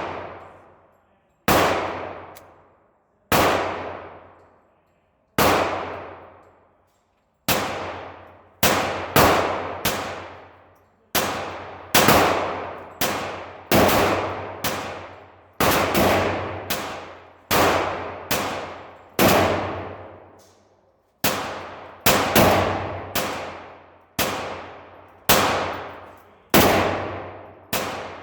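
Kel-Tec CP33 .22 LR pistol fired as single shots, about thirty in a row. Each crack has a long echoing tail. The shots come roughly every two seconds at first and speed up to about one a second from around eight seconds in.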